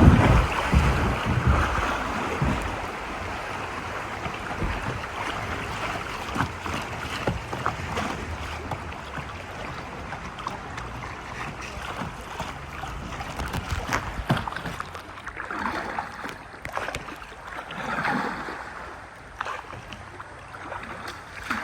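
River water rushing and splashing around a kayak, with scattered small splashes and knocks from paddling. Wind buffets the microphone for the first couple of seconds.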